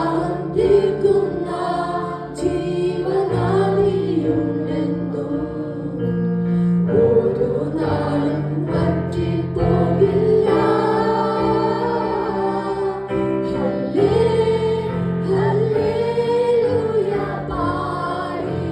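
Worship song sung by a group of voices over steady held chords.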